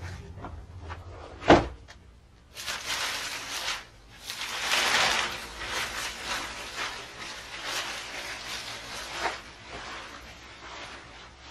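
Plastic dust sheet rustling and crinkling as it is pulled off a stored moped, after one sharp knock about a second and a half in.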